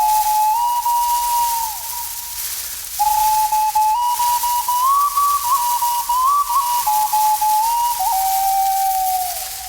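A whistled melody of pure held notes that step up and down with quick grace-note flicks, in two phrases: the first fades out with a falling pitch about two seconds in, and the second starts about a second later and falls away near the end.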